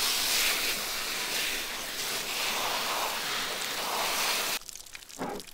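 Garden hose pistol-grip spray nozzle spraying water onto a feathered chicken carcass, wetting the feathers down so they don't stick everywhere during skinning: a steady hiss that cuts off suddenly about four and a half seconds in.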